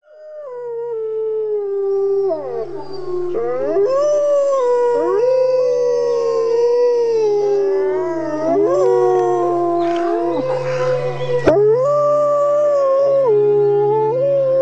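Several wolves howling together: long overlapping howls that slide up and down in pitch, over a low steady hum.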